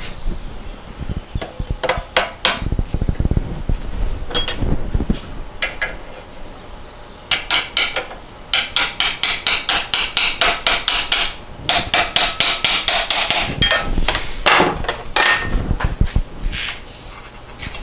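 Hammer tapping new bronze pedal bushings into the pedal shaft tube of a Porsche 912 pedal cluster, metal on metal. It starts with scattered taps, then goes into two long runs of rapid blows in the middle, with a few more strikes near the end.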